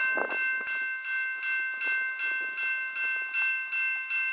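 Railroad grade-crossing warning bell ringing in a steady, even rhythm of nearly three strikes a second, signalling that a train is approaching the crossing.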